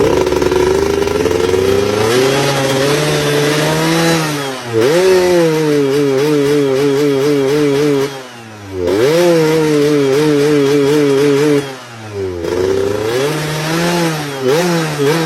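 Underbone motorcycle with a raspy exhaust running under way, its engine note climbing with the revs and dipping briefly at gear changes about five, eight and twelve seconds in, then pulling again. Near the end the throttle is blipped in quick short bursts.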